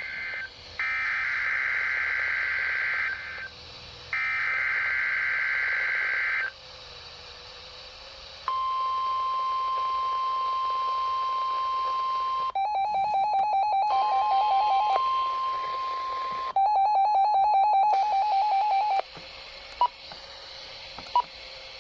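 NOAA Weather Radio Emergency Alert System weekly test. Three shrill buzzing SAME data bursts play, then the steady 1050 Hz weather radio warning alarm tone sounds for about eight seconds. From about halfway through, a weather radio's rapidly pulsing alert beep sounds twice, the second after the steady tone has stopped.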